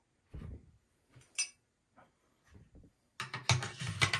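Clicks and knocks of an FN SCAR-16S rifle's parts being handled and fitted back together: a few scattered clicks, then a quick run of clattering from about three seconds in.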